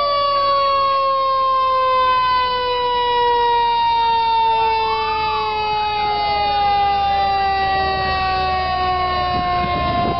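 Fire truck sirens wailing: one long, slowly falling tone that jumps back up in pitch near the end, with a second siren's quicker rise-and-fall wails joining about halfway through.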